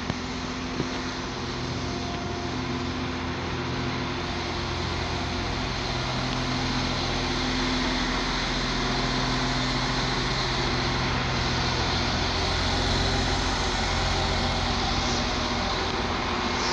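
NI Railways Class 4000 CAF diesel multiple unit's diesel engines running steadily as the train moves off along the platform, growing gradually louder.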